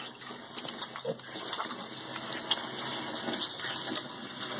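Piglets suckling milk from bottles: wet sucking and slurping with many irregular smacks and clicks, as they draw in milk and then air around the nipples.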